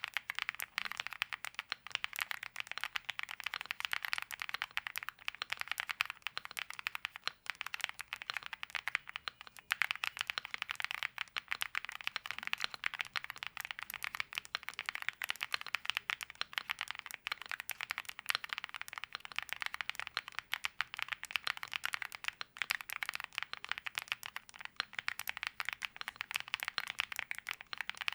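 Fast, continuous typing on a mechanical keyboard fitted with Kailh Lunar linear switches (POK stem in POM housings), a dense stream of quick key clacks with brief lulls a few times.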